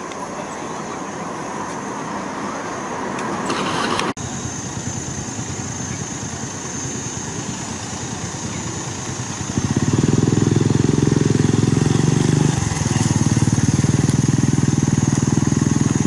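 A vehicle engine idling close by: a steady, even running that turns much louder about ten seconds in and holds, with a small step in level a few seconds later. Before it comes a traffic and engine background, with a sound building up until a cut about four seconds in.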